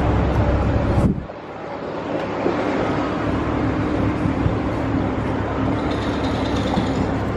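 Steady low rumble of engine and traffic noise. About a second in a sharp knock cuts it off, and it builds back up over the next second or two.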